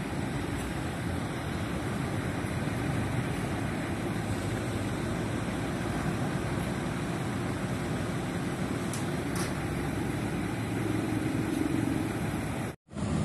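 Mercedes-Benz coach's diesel engine idling steadily at close range, growing slightly louder near the end.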